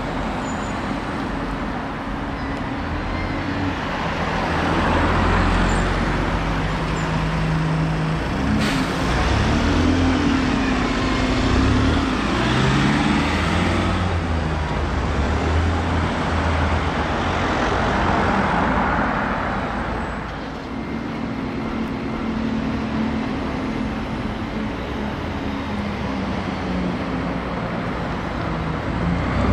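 Town-street traffic with Alexander Dennis Enviro 200 single-deck diesel buses and a van driving past. Engine notes rise and fall as each vehicle goes by, loudest about 5, 10 to 13 and 18 seconds in.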